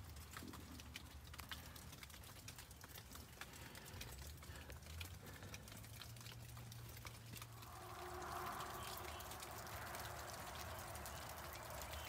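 Faint scattered drips of rainwater and footsteps on rock and wet leaves, small ticks and taps at uneven spacing. A soft hiss grows from about eight seconds in.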